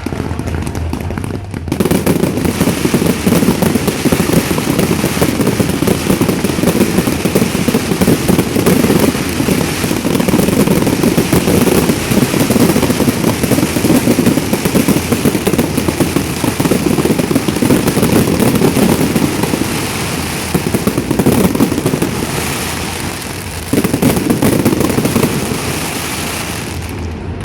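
Fireworks going off in a dense, continuous barrage of rapid bangs and crackles that starts about two seconds in, with a brief lull near the end.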